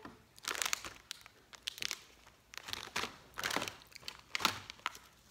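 Plastic candy and snack wrappers crinkling in a string of short bursts as they are handled and sorted through.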